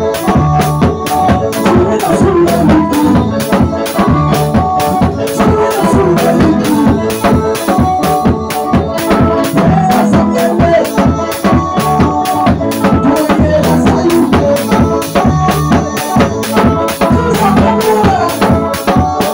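Live band music: a drum kit keeps a steady beat under held instrument notes, and a man sings into a microphone over the loudspeakers.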